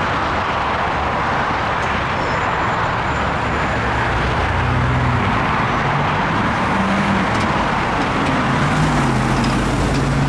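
Steady rumble of vehicles at a railroad grade crossing, with a low engine hum that rises and falls about halfway through.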